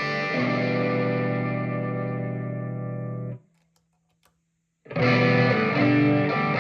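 Distorted electric guitar, a Telecaster on its bridge pickup through an overdrive preamp pedal: a chord rings out and fades, is cut off suddenly about halfway through, and after a second and a half of silence the playing starts again.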